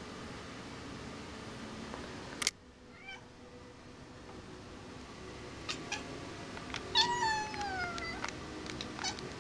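Cat chirping at a fly it is hunting: a couple of short chirps, then a longer call falling in pitch about seven seconds in, and more short chirps near the end. Before that, a sharp click about two and a half seconds in, after which a steady background hum drops away.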